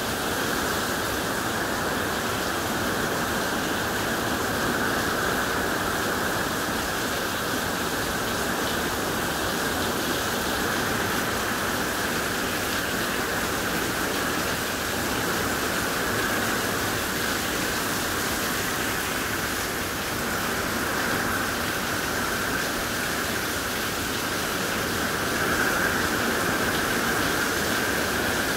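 Heavy, steady rain pouring down in a hurricane's outer band, getting a little louder about three seconds before the end.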